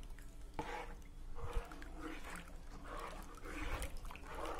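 A spoon stirring a flour paste into milk in a wide metal pot: liquid swishing and sloshing in repeated strokes, with a few light taps.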